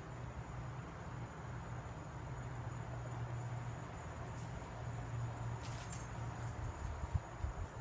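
Insects trilling steadily at a high pitch in the night air, over a low steady rumble, with a couple of sharp bumps near the end.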